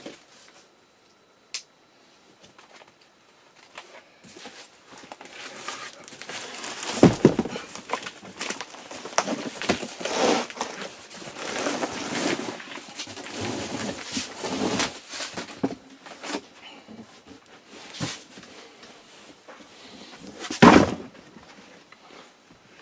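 Rustling, scraping and crinkling of a boxed mattress and its cardboard box and plastic wrapping being handled and pulled about, with two loud thumps, one about seven seconds in and one near the end.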